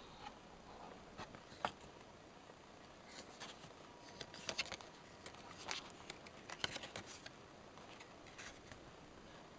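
Pages of a paper journal being turned by hand: soft, scattered paper rustles and light clicks, busiest in the middle.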